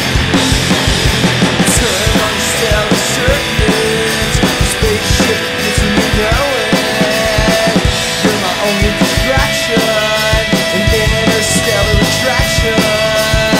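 Live rock band playing: electric guitar, electric bass and a drum kit, with a steady beat of drum hits under the guitars.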